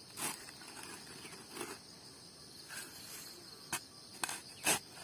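A long-handled shovel cutting and scraping into red earth, about six strokes at uneven intervals, the loudest near the end. A steady high chirring of insects runs underneath.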